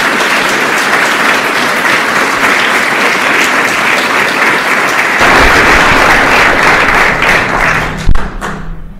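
Audience applauding, the clapping dying away near the end, with a loud thump just before it stops.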